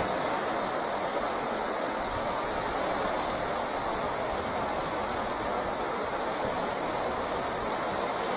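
River rapids rushing steadily: a continuous, even roar of whitewater.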